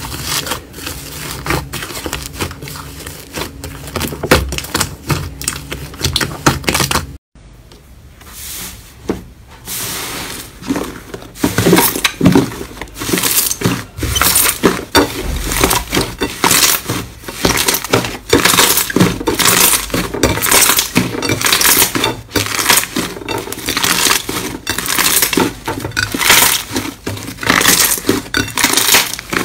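Hands squishing and kneading slime: wet squelching with quick crackling pops of trapped air. First a green slime mixed with foam beads, then, after a brief break about 7 seconds in, red slime squeezed between the palms, its popping louder and denser.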